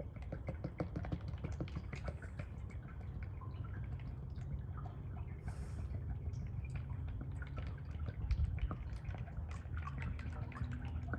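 Fresh motor oil being poured from its container into the Jeep YJ engine's oil filler, a steady run of small irregular splashes and drips during an oil change refill.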